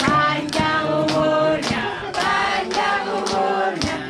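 A group of adults and children singing a birthday song together in unison, with steady hand-clapping about twice a second keeping the beat.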